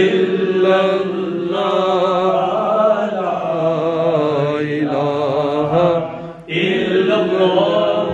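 A man's voice chanting a melodic devotional recitation in long, wavering held notes, with a short pause for breath about six and a half seconds in.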